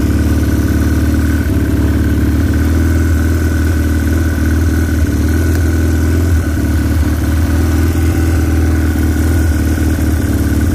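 Chinese 250cc ATV's single-cylinder engine idling steadily, with a thin steady whine over the low engine note.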